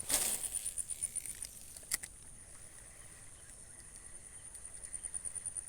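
Insects chirping in a steady, high, pulsing note. A short rush of noise comes at the very start, and a single sharp click about two seconds in.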